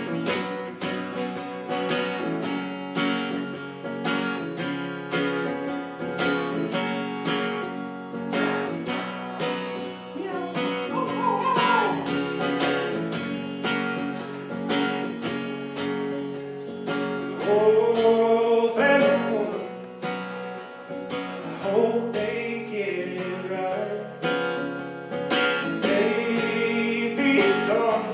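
Acoustic guitar strummed steadily in a song, with a voice singing a few drawn-out phrases over it; the sung line is loudest about two-thirds of the way through.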